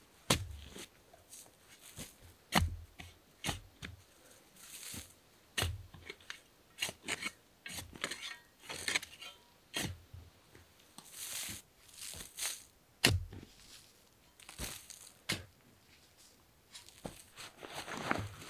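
A shovel chopping and digging into sandy forest soil: irregular sharp strikes, some with a dull thud, between scraping, tearing noise as earth and roots give way. Near the end there is a stretch of rustling.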